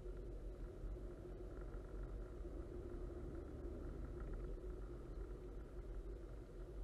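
Steady road and tyre noise of a car cruising at constant speed, heard from inside the cabin as a low rumble with a faint steady hum.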